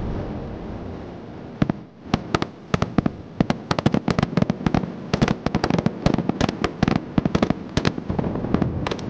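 Rapid, irregular small-arms gunfire from several rifles on a firing range: many sharp cracks a second, overlapping, for most of the clip. A low steady rumbling noise comes before it.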